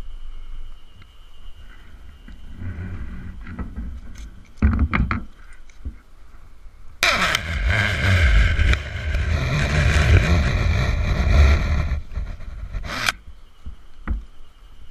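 Climber's rope descent rig working against a pruned cedar trunk: a few sharp clicks about five seconds in, then a loud, continuous rasping for about six seconds that cuts off suddenly.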